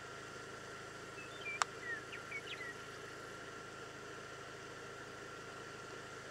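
A steady hum and hiss with a faint steady high tone. About one and a half seconds in comes a single sharp click, among a few short high chirps.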